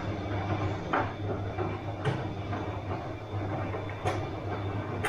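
Bosch washing machine running through a wash cycle: a steady motor hum with a sharp knock every second or two as the drum turns.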